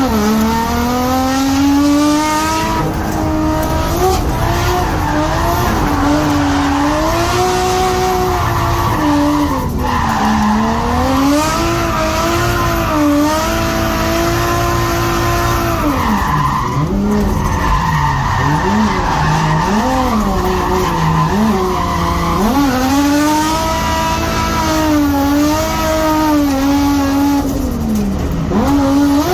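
Nissan Skyline R32's turbocharged RB20DET straight-six revving hard, its pitch rising and falling as the throttle is worked through a drift, with several quick dips and rises past the middle. Tyre squeal and skidding noise run under the engine.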